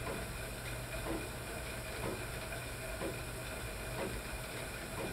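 Stationary cycle ergometer running steadily as the rider pedals, a whirring hiss with a faint rhythmic sound about once a second.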